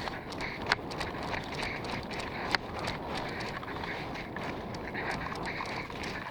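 Footsteps and gear rustling of a player moving fast over rough ground, heard from a helmet-mounted phone, with wind rumbling on the microphone. There are many light clicks and two sharper cracks, about a second in and halfway through.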